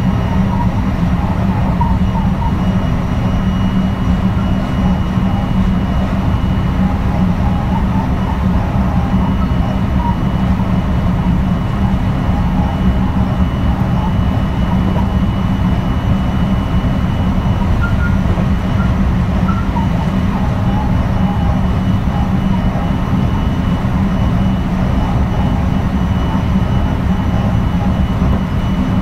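Running sound of a JR West 223 series 2000 subseries electric train with a Hitachi IGBT inverter, travelling at a steady speed: a steady low rumble from the wheels and track, with a faint constant whine above it.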